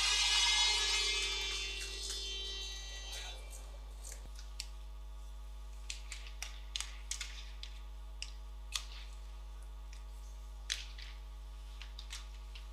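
In an ice hockey arena, a loud noisy swell with faint steady tones fades out over the first three seconds. After that come sparse sharp clicks and knocks of sticks and puck during play, over a steady low electrical hum.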